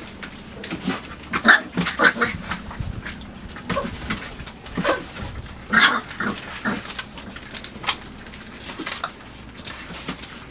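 Five-week-old chocolate Labrador retriever puppies playing, with short squeaks and grunts among irregular scratching and scuffling.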